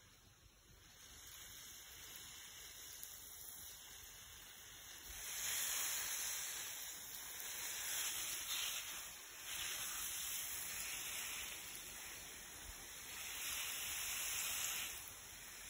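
Water spraying from a garden hose nozzle onto soil and plants: a steady hiss that grows louder about five seconds in and then swells and fades several times as the spray is moved.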